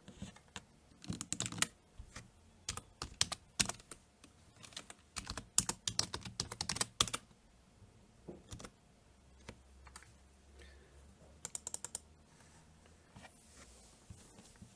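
Typing on a computer keyboard: runs of quick keystrokes over the first seven seconds, then a few scattered clicks and a short quick burst about twelve seconds in.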